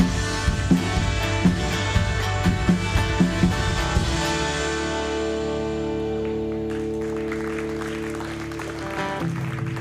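Worship band music: a steady beat of drum strokes under held chords, then about four seconds in the drums stop and a chord rings on and slowly fades, with a new chord coming in near the end.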